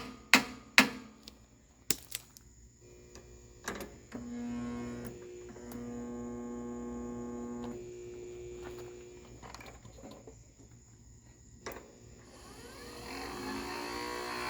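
Riding lawn mower's electric starter motor whirring in runs with a steady whine, spinning fast without cranking the engine: the starter's drive spring is not engaging the flywheel, which the owner puts down to a weak battery. A couple of sharp knocks come right at the start, and the whine rises again near the end.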